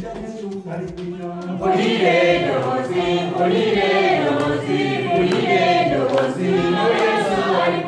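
Congregation singing together in unison, getting much louder about two seconds in.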